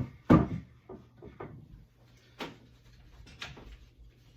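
Wooden knocks as the display rack's wooden support foot is set down on the floor: two heavy knocks at the start, the second the loudest, then two lighter knocks about two and three seconds in.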